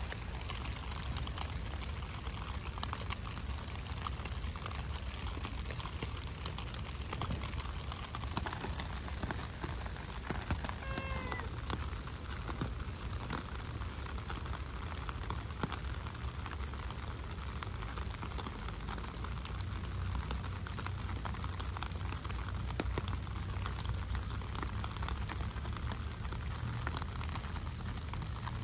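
Steady rain falling, with a single short meow from an orange tabby cat about eleven seconds in.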